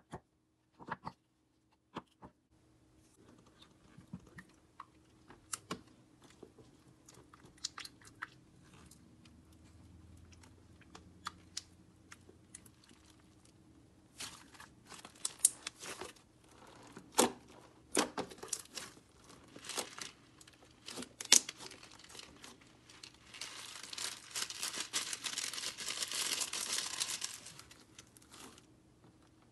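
Purple slime being squished, stretched and poked by hand, with scattered sticky clicks and pops. Near the end comes a dense run of crunching crackles lasting a few seconds as slime full of foam beads is pressed under the hands.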